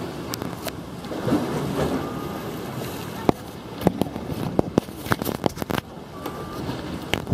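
Wind on the microphone over the wash of the sea, with a run of sharp clicks and knocks starting about three seconds in.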